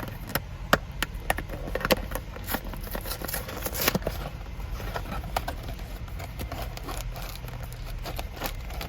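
Packaging of Nature Valley peanut butter biscuits being handled and opened: irregular crackling, crinkling and clicking, busiest a few seconds in, over a steady low hum.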